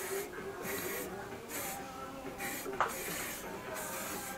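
Aerosol spray can hissing in short, regular bursts, about two a second, with a single sharp knock about two-thirds of the way through.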